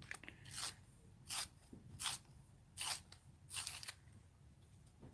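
Colored pencil scratching in five short, even strokes less than a second apart.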